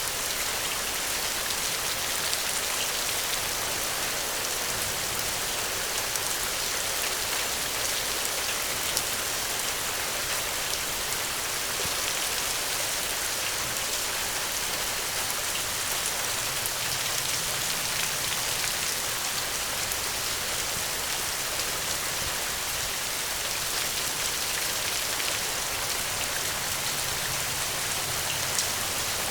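Steady rain falling, an even hiss of drops with faint scattered sharper drop ticks.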